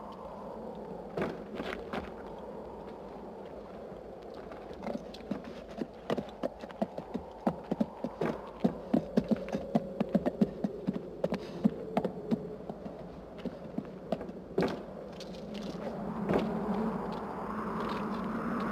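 Footsteps on a cobbled street, heard as a run of short knocks: scattered at first, then quick and fairly regular, about three to four a second, in the middle, with a steady low background noise underneath.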